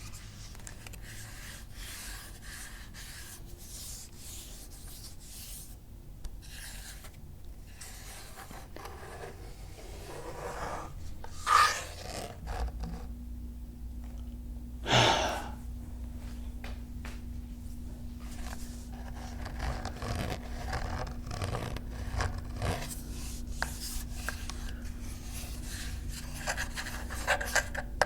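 Ruger 10/22 .22 rimfire rifle being handled: steady rubbing and scraping against the rifle, with scattered light clicks. Two louder, sharper handling noises come about a third and halfway through.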